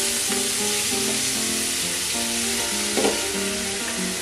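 Pork sizzling as it fries in an aluminium pot, stirred with a metal spoon, with a sharp clack of the spoon against the pot about three seconds in. Background music with held notes plays under it.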